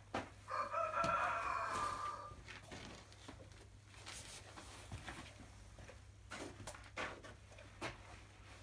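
A rooster crowing once, a single call of about two seconds, followed by scattered light knocks and clicks.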